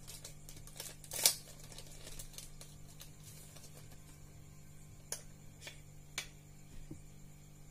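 Faint handling noise: a few crinkles and small clicks from a clear plastic packet and a mobile phone battery being handled, the loudest about a second in. A low steady hum runs underneath.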